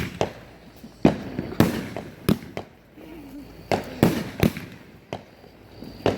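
Consumer fireworks going off outdoors: a string of sharp bangs and cracks, about eight in six seconds at uneven intervals.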